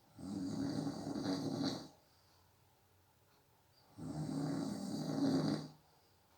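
A person snoring in sleep: two snores, each lasting under two seconds, about four seconds apart, with quiet breathing gaps between them.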